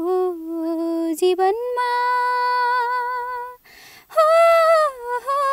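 A girl singing a Nepali modern song without accompaniment, holding long, steady notes, with a brief pause for breath about three and a half seconds in.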